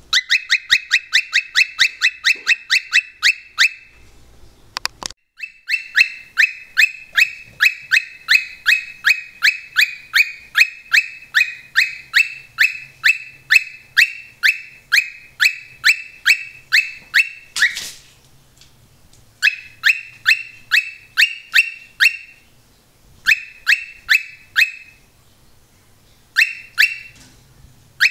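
Cockatiel chirping in fast runs of short, identical falling notes, about six a second: one long run of over ten seconds, then shorter bursts broken by pauses.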